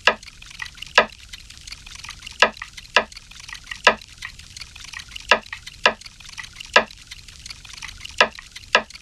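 Short, sharp clicks in groups of three, the group repeating about every three seconds over a faint hiss: a sampled percussive intro to a lofi beat.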